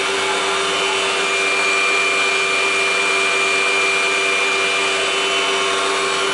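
Mitsui Seiki HJ63A CNC horizontal machining center running: a steady machine hum and whine over a hiss, with a thin high tone that comes in about a second in and fades near the end.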